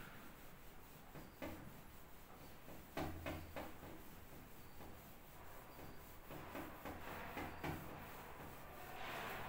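A whiteboard duster being wiped across a whiteboard: soft rubbing with a few short knocks of the duster on the board, the loudest cluster about three seconds in.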